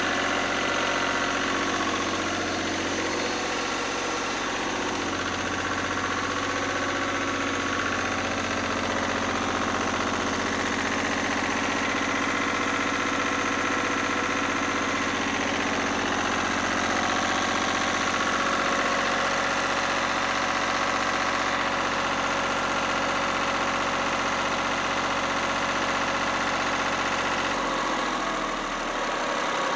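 Lister ST3 air-cooled three-cylinder diesel engine running its generator at a steady speed, a test run of its newly plumbed fuel system. Near the end its deep low drone drops away.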